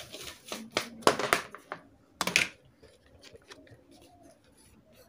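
Hand scraping and rubbing strokes from cleaning a part of a rechargeable emergency light, with one louder scrape a little over two seconds in, then faint clicks of handling.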